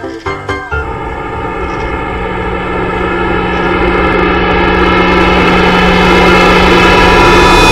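The last plucked notes of a light, marimba-like music track, then a loud, steady engine-like drone that swells louder and louder and cuts off abruptly at the end. It is an editor-added sound effect, not the road traffic in the picture.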